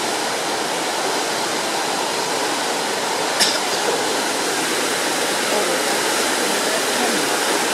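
Rushing water of a rocky creek's whitewater rapids: a steady, even rush of water over rocks, with one brief click about three and a half seconds in.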